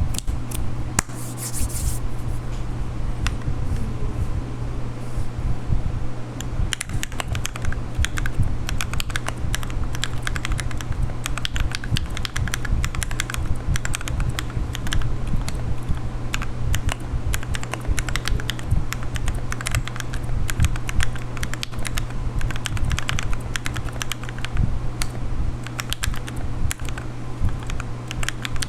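Typing on a Rakk Lam-Ang Pro mechanical keyboard with lubed and filmed Gateron Milky Yellow Pro linear switches: a continuous, uneven stream of key clacks over a steady low hum.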